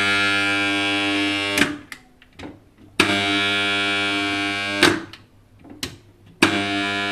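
Submersible pump starter's contactor buzzing loudly with a mains hum each time it is switched on, then cut off with a clack: on and off three times, about two seconds at a time. The hum comes from a gap between the contactor's core faces, left by a dead spider lodged inside.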